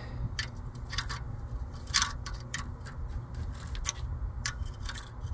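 Irregular metallic clicks and ticks from a wrench working a nut welded onto a broken exhaust manifold bolt back and forth as the seized bolt begins to turn out of the cast manifold. The loudest click comes about two seconds in, over a low steady rumble.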